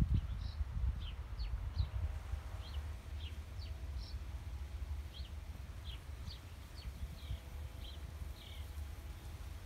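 Small birds chirping, short high chirps about one or two a second that stop near the end, over a steady low rumble.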